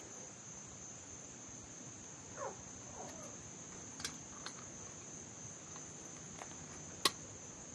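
A steady high-pitched chorus of insects, with two short downward-gliding calls about two and a half and three seconds in, and a few sharp clicks, the loudest one near the end.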